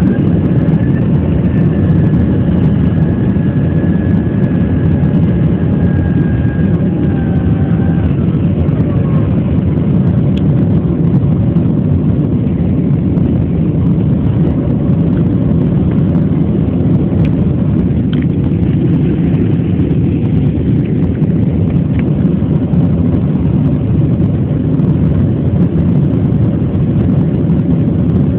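Steady jet airliner cabin noise after take-off: a low, even rumble of engines and airflow. A faint high whine drops slightly in pitch and fades about eight seconds in.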